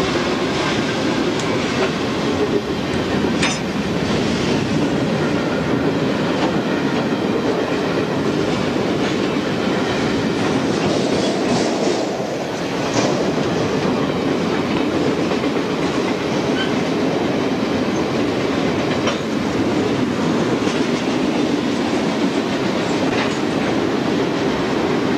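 Freight train passing close by, its cars rolling over the rails in a steady rumble, with a few sharp clicks from the wheels.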